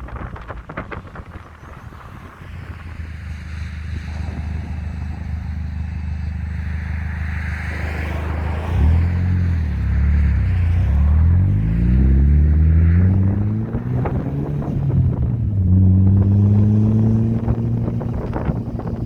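Audi TT 225 quattro's turbocharged 1.8-litre four-cylinder engine pulling the car along, with wind buffeting the microphone. About halfway in, the engine note climbs, drops back and climbs again as the car accelerates through the gears, getting louder.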